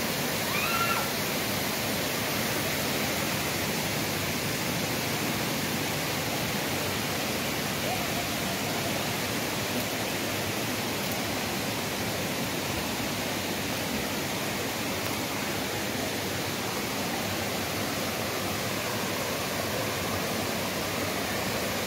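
Steady rush of spring water running over rocks and small cascades.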